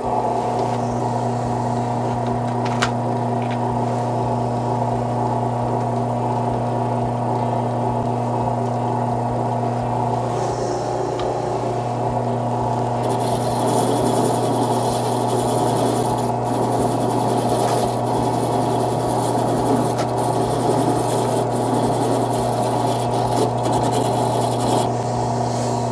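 Benchtop drill press motor switched on and running with a steady hum, a brass wire wheel spinning in its chuck. From about halfway, a hissing scratch comes and goes as small screws and bolts are held against the spinning brass brush to clean them, in short spells with brief breaks.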